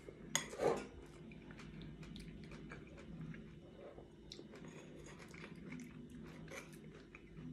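Close-miked chewing of a fruit salad in yogurt: soft, wet mouth sounds with small crunches of fruit pieces, and a metal spoon scooping in a ceramic bowl. A short, louder noise comes about half a second in.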